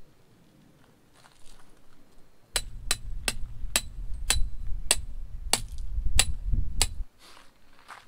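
A tent stake being hammered into gravel ground for a tarp's guy line: about ten sharp strikes, a little under two a second, each with a short ring, over a low rumble.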